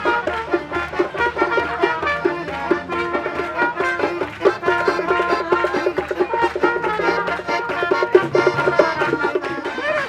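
Lively music led by brass instruments, with a quick repeated run of short notes over a steady beat.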